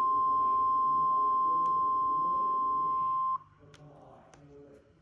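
NOAA Weather Radio warning alarm tone, the steady 1050 Hz test tone from a weather radio receiver, sounded for the required weekly test. It cuts off abruptly about three and a half seconds in, followed by a few faint clicks.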